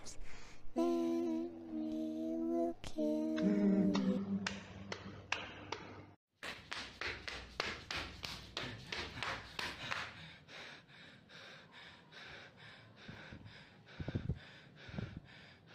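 A voice singing a slow, creepy nursery-rhyme tune, breaking off suddenly about six seconds in. Then fast running footsteps on pavement, about four sharp steps a second, fading away, followed by heavy panting near the end.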